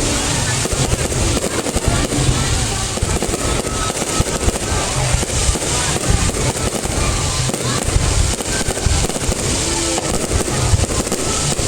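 Fireworks display going off in a dense, continuous barrage: rapid crackling bangs over deep low booms, with no pause.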